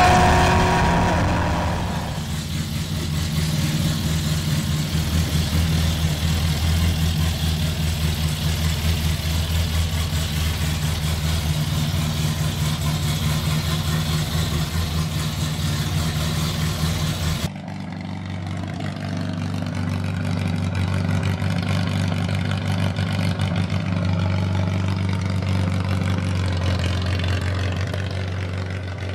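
The rebuilt 1798cc four-cylinder engine of a 1965 MGB race car with twin SU carburettors. In the first couple of seconds it is at high revs on track, heard from the cockpit, then it idles steadily, the sound changing abruptly about halfway in as a new recording of the idling engine begins.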